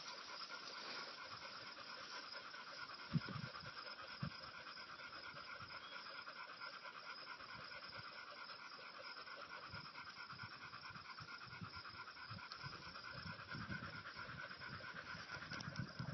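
A spaniel panting rapidly and steadily, with a couple of soft low thumps about three and four seconds in.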